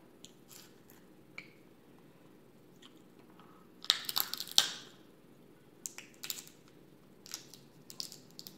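Crab leg shells cracking and crunching as they are pried apart by hand and bitten open, in scattered snaps with the loudest crunching about four seconds in.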